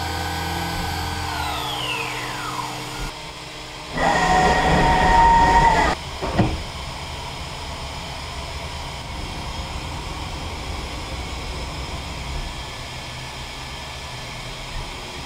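CNC mill-turn machine running: a spindle whine falls in pitch over the first few seconds, a louder stretch with steady tones follows about four seconds in, there is a short knock just after that, and then a steady machine hum.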